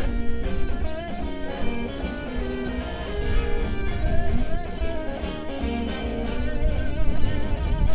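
A blues band playing live, led by a guitar playing wavering, bent lead notes over the band's steady low backing.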